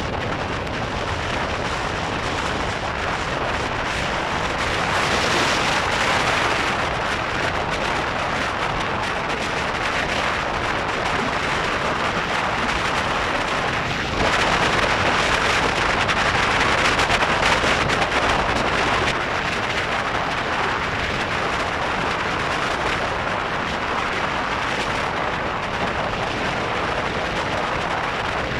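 Steady rush of wind and road noise from a car driving at highway speed, swelling louder for a second or two about five seconds in and again for several seconds in the middle.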